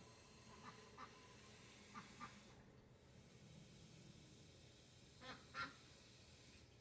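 A pet bird making faint short calls: a few soft ones scattered through the first half, then two louder ones close together near the end, over quiet room tone.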